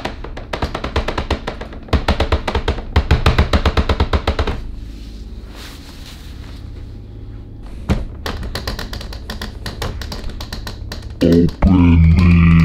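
Background music with a fast drum beat, thinning out about halfway; near the end a loud, deep pitched sound that slides down in pitch.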